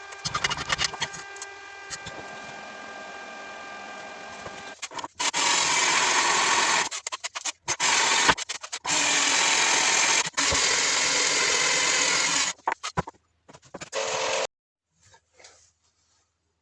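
Power tool running in several bursts, starting and stopping with short pauses. A fainter steady motor hum comes first.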